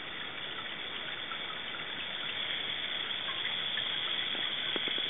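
Aluminum wire fizzing in hydrochloric acid: a steady hiss with tiny pops as the hydrogen bubbles of a vigorous reaction burst, and a few faint clicks near the end.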